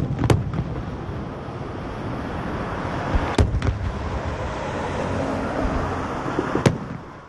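Fireworks bursting: a few sharp, loud bangs (two close together at the start, one about three seconds in, one near the end) over a steady rushing noise that fades out at the end.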